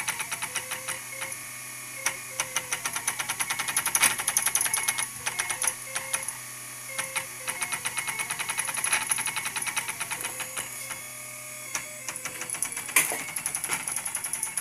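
Homemade RepRap 3D printer running a print: its stepper motors clatter in rapid, clanking steps, with short musical tones from the smooth-running scanner-carriage X axis coming and going over a steady hum. The clanking comes from the dot-matrix printer carriage axes moving in coarse 0.4 mm full steps without micro-stepping. There is one sharp, louder clack near the end.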